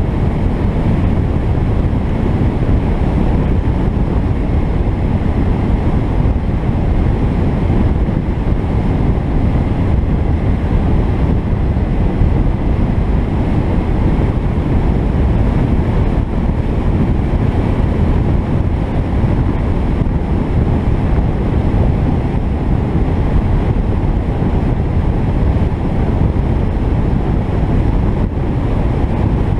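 Steady wind rumble on the microphone and road noise from an Alfa Romeo 33 driving along an open road, with no change in engine speed.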